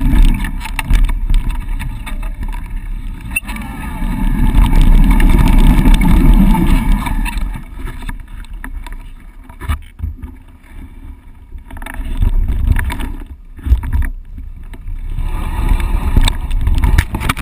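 Wind rushing over the action camera's microphone and mountain bike tyres rolling on a dry dirt trail, with knocks and rattles from the bike over bumps. The rush is loudest in the first half, eases about halfway through, then surges again near the end.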